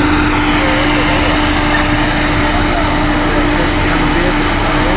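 Oil drilling rig machinery running: a loud, steady engine noise with a constant hum and no change.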